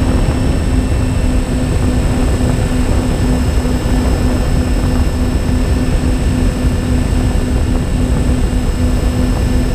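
Motors and propellers of a MyTwinDream twin-motor FPV model plane running steadily in cruise: a constant drone with a thin high whine above it. Heavy wind rumble buffets the onboard camera's microphone.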